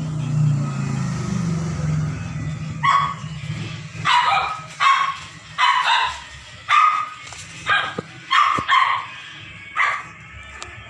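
A dog barking, about eight or nine sharp barks in a row, starting about three seconds in. A low droning hum is heard before the barking begins.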